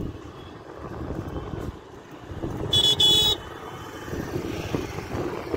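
Motor scooter horn beeping twice in quick succession about three seconds in, high-pitched and loud, over the low running of the scooter's small engine.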